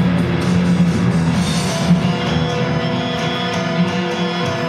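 Live band playing amplified rock-style music: keyboard holding sustained chords over a steady drum beat.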